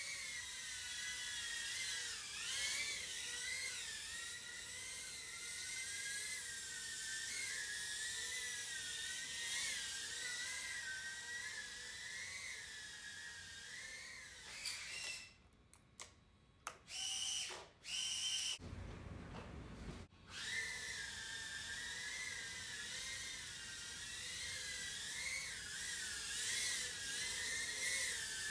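Tiny brushless whoop motors (HappyModel EX1102 9000KV on 40 mm four-blade props) whining in flight, the pitch rising and falling with throttle. About halfway through the whine cuts out for a few seconds, with a few short high tones and a brief low rumble, then it picks up again.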